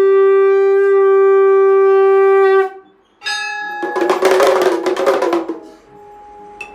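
Conch shell (shankh) blown in a long steady note that cuts off about two and a half seconds in, then a short second blast. After it comes a dense burst of rapid metallic strokes on a brass gong, lasting about a second and a half.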